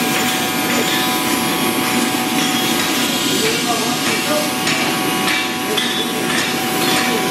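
Steady workshop din with scattered light knocks, hammer-like taps on metal in the background.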